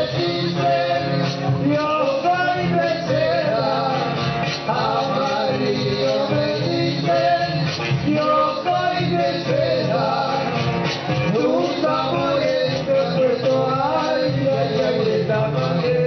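Marinera limeña music: male voices singing a criollo melody over guitar and percussion.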